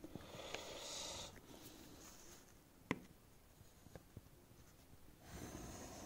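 Faint scratching of a pencil and plastic ruler on paper as the ruler is set and a line is drawn, once in the first second and again near the end. A single sharp tap comes about three seconds in, followed by a few lighter ticks.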